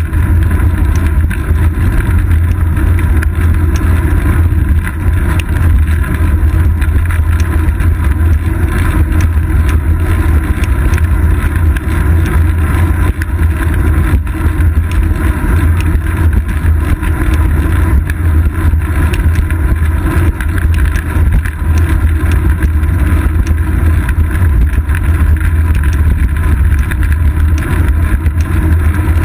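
Steady, loud low rumble of wind and road vibration picked up by a seat-post-mounted GoPro Hero 2 on a bicycle riding along a paved road.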